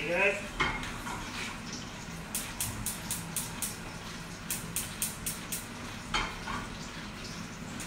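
Wooden pepper mill being twisted, grinding peppercorns in two quick runs of sharp clicks, about four or five a second, around the middle. A faint steady sizzle of meat frying gently in a pan runs underneath.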